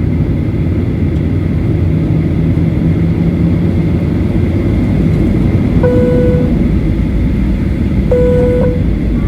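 Steady low rumble of an airliner cabin with the engines running before takeoff. Two short chime tones sound about two seconds apart in the second half.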